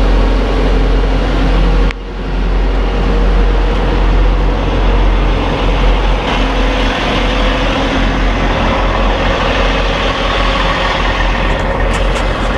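Kenworth W900 semi-truck's diesel engine running with a steady deep drone, with a brief sudden dip in level about two seconds in.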